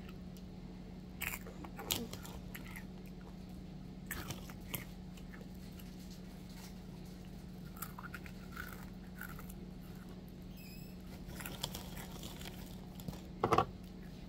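Cheetos being bitten and chewed close to the microphone: scattered soft crunches over a steady low hum. Near the end comes one louder knock.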